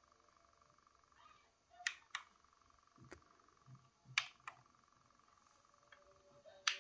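Sony TC-K611S cassette deck's front-panel transport buttons being pressed: about six short clicks spread over several seconds, the loudest near the end. With a tape loaded, the deck does not go into play.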